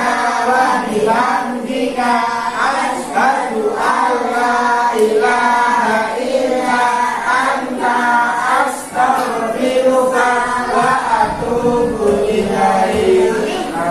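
A class of children chanting a prayer together in unison, many voices in a sing-song recitation.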